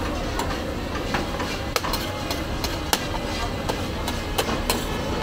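Metal spatula clinking and scraping on a large flat steel griddle as beans and chickpeas are stirred, with irregular sharp clinks about two a second over a steady hiss.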